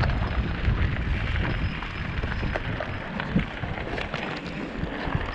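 Strong wind buffeting the microphone with a heavy, continuous rumble. Scattered short clicks and rattles, typical of a mountain bike riding over stony ground, run through it.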